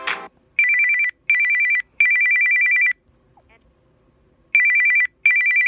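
Samsung Galaxy A52 5G ringtone playing from the phone's speaker: an electronic ring that trills rapidly between two high tones. The rings come in groups of two short rings and a longer one, with a pause of about a second and a half between groups. A music ringtone stops right at the start.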